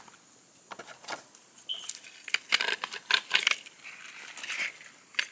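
Hands handling rhinestone jewelry in a cardboard gift box: a scatter of small clicks, taps and rustles, with a busier run of them in the middle.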